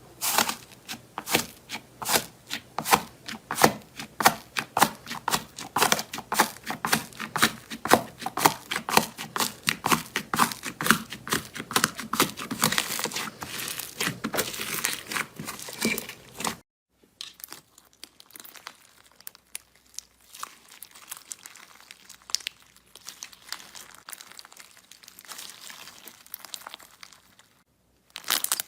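Slime being squeezed and pressed by hand, giving dense, rapid crackling and popping clicks. From about two-thirds of the way through, the crackling becomes much quieter and sparser.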